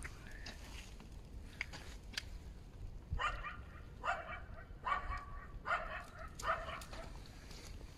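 A dog barking, a run of about five barks a little under a second apart, starting about three seconds in.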